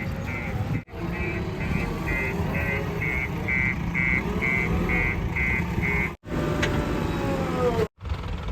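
Diesel engine of earth-moving machinery running, with a reversing alarm beeping about twice a second. The beeping stops about six seconds in, and a falling whine follows. The sound is broken by abrupt cuts.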